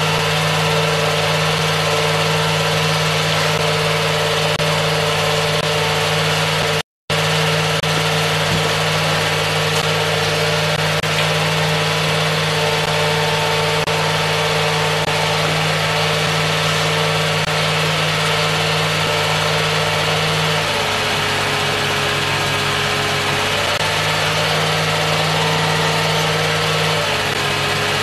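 Steady machine hum with an even hiss, cutting out completely for a moment about seven seconds in, its tone shifting slightly near the end.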